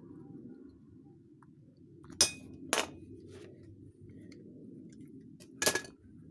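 Three sharp clinks, about two seconds in, just after, and near the end, as a 3D-printed resin bullet mold is handled and worked open with gloved hands, hard plastic knocking against metal.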